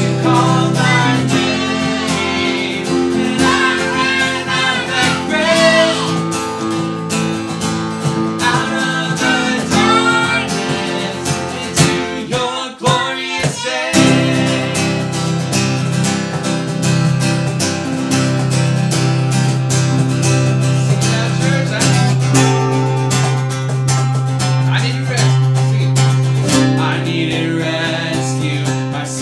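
Worship song performed live: singing over a strummed acoustic guitar, a digital piano and a cajon keeping the beat. The music dips briefly about halfway through before going on.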